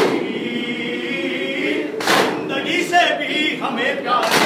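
Group of men chanting a Shia noha lament in unison, led by a reciter. A sharp strike about every two seconds marks the chest-beating of the matam.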